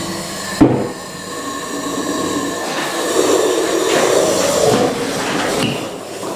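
Electric submersible drainage pumps running at the bottom of a nearly empty flood-testing tank, with a steady whine and water noise that grows louder in the middle. A sharp knock comes about half a second in.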